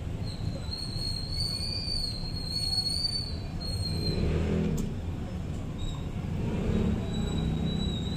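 Steady low background rumble, with a thin high whine during the first few seconds and a single light clink of a utensil on the plate a little before the middle.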